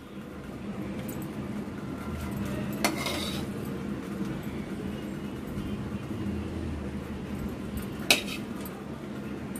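Steel spoon serving cooked okra out of a steel frying pan, over a steady low hum, with two sharp clinks of the spoon against the pan: one about three seconds in and a louder one near the end.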